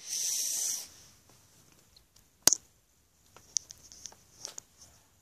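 Handling noise close to the microphone among toys and a fleece blanket: a short hissing rustle at the start, a single sharp tap about two and a half seconds in, then a few light clicks and rustles.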